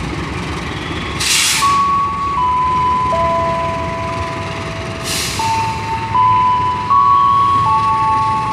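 A slow electronic chime melody of single held notes over the station loudspeakers, above the low rumble of a diesel-hauled passenger train coming in. Two short hisses of air cut in about a second in and again about five seconds in.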